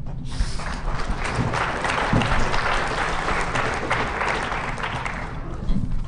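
Audience applauding, building just after the start and tapering off near the end.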